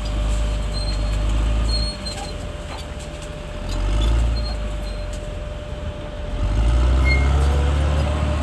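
Caterpillar D6R bulldozer's diesel engine working under changing load, a deep drone that drops off about two seconds in and swells again near four seconds and from six and a half seconds. A thin steady whine runs over it, with scattered clicks.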